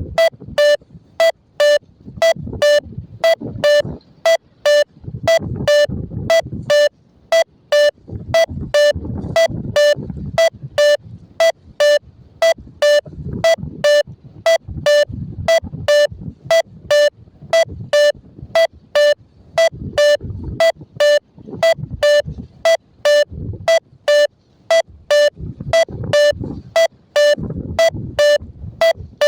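XC Track variometer app beeping its climb tone: short beeps at one steady pitch, about two to three a second, signalling that the glider is rising. A low uneven rumble runs underneath.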